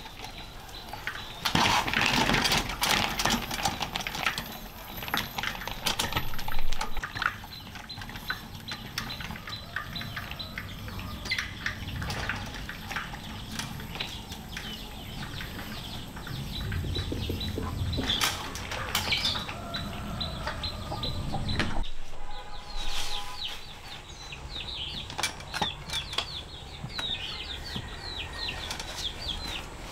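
Chickens flapping about and chirping, with scattered knocks and clatter. Rapid high chirping fills the last several seconds.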